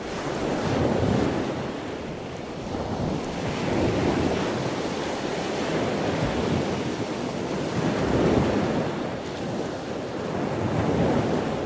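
Sea waves washing in, a rushing noise that swells and eases every three or four seconds.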